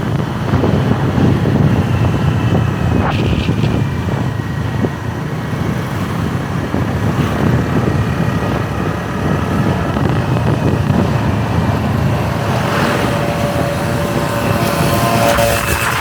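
Motorbike running at riding speed under heavy wind buffeting on the microphone, a steady low rush with no break. A faint pitched sound comes in near the end.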